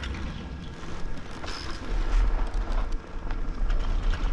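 Skis scraping and hissing over packed piste snow while skiing downhill, with wind rumbling on the microphone; the rumble swells a couple of seconds in and stays loud.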